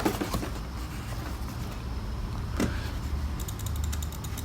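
A quick run of sharp plastic clicks from a gaming mouse's buttons being pressed, starting about three and a half seconds in, over a low steady hum.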